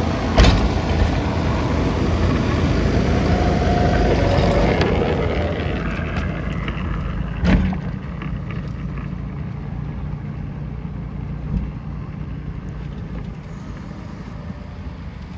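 Tractor engine running an inverted snowblower, loudest in the first few seconds and then slowly fading. A sharp knock comes just after the start, and another about halfway through.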